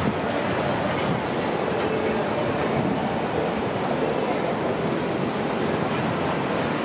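Steel wheels of a rail vehicle squealing on the track: a thin high whine that starts about a second and a half in and lasts about two seconds, over steady street noise.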